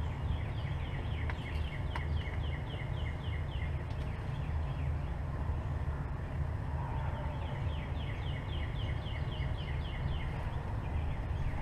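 A bird singing two quick runs of short, falling chirps, one near the start and one about two-thirds through, over a steady low rumble.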